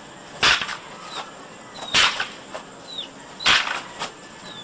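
Long wooden fighting sticks clacking together in a tapado drill: three sharp strikes about a second and a half apart. Short high whistles falling in pitch come between them.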